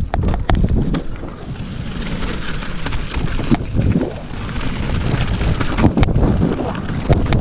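Wind buffeting the GoPro microphone over the low rumble of a mountain bike rolling down a rough trail. A few sharp knocks sound as the bike hits rocks, two near the start and two near the end.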